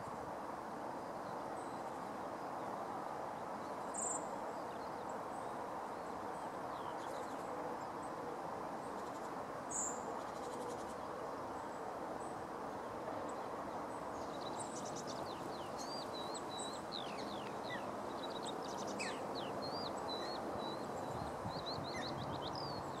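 Steady outdoor background noise, with birds chirping and calling in short, quick notes over it through the second half.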